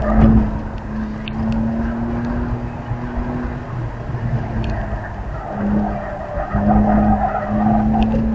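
BMW E46 325xi Touring's inline-six engine running hard during an autocross run, heard from inside the cabin, with the tyres squealing through the cones. The engine note holds steady, breaks off briefly about four seconds in, then comes back.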